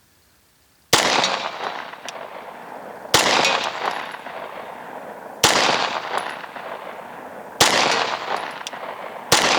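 Five pistol shots from a Glock 23 Gen 4 firing 9mm through a Lone Wolf 40-9 conversion barrel, spaced about two seconds apart. Each crack is followed by a long echo that fades before the next.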